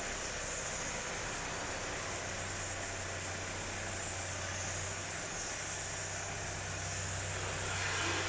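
1325 woodworking CNC router running, a steady machine noise with a constant low hum under a high hiss, swelling slightly near the end.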